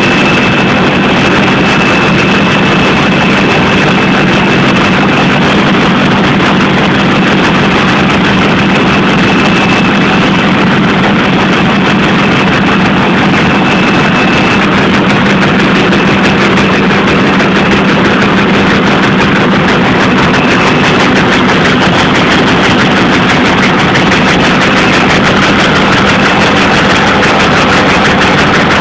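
Web-fed rotary printing press running: a loud, steady mechanical din with a constant low hum and a thin high whine that comes and goes.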